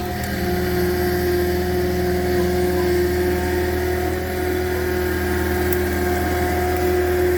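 Engine of the post-hole auger rig running at a steady, unchanging speed between holes.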